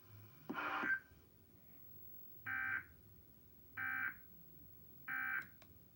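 Emergency Alert System end-of-message data bursts: three short, identical warbling digital tone bursts about a second apart, signalling the end of the alert. A brief, louder sound comes about half a second in.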